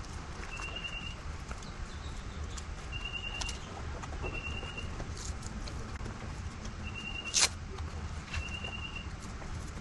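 Light clicks and knocks of hands fitting a battery bag onto an e-bike frame, with one sharp loud click about seven seconds in. A short trilled chirp repeats about once a second throughout.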